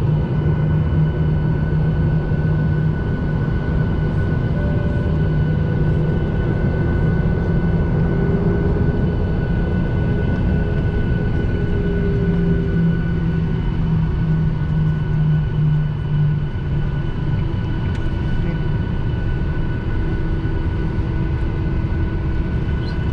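Airliner's engines running steadily before takeoff, a deep rumble with a steady whine above it and no change in pitch.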